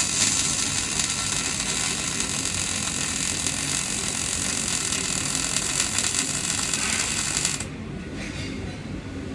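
MIG welding arc crackling steadily as a bead is laid, then stopping about seven and a half seconds in.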